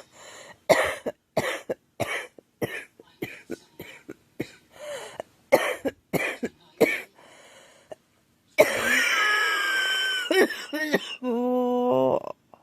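A girl coughing in a long run of short coughs, roughly two a second, then a louder, longer coughing fit with a strained, pitched sound in the last few seconds.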